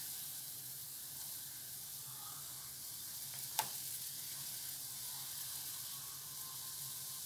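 Milk and water with garlic cloves boiling in a pan, a steady hiss, with one sharp click about three and a half seconds in.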